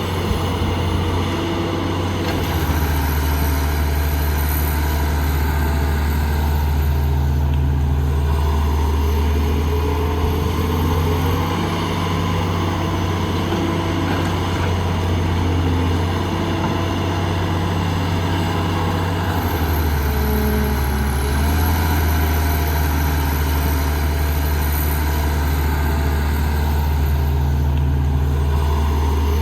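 Diesel engine of heavy construction machinery running steadily with a deep hum, its pitch shifting briefly a few times as the load changes.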